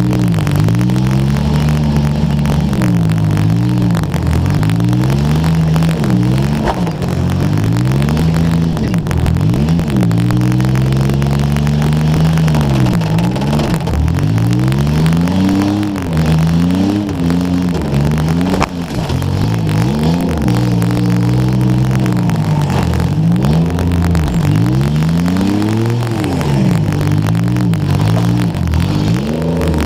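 Demolition derby car's engine revving hard and dropping back again and again, its pitch sweeping up and down every second or two. Two sharp knocks cut through, about 7 and 19 seconds in.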